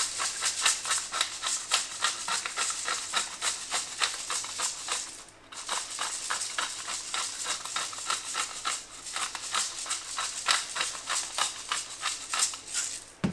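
Hand-held pepper mill grinding black peppercorns: a fast run of rattling clicks as the mill is twisted, with a short pause about five seconds in.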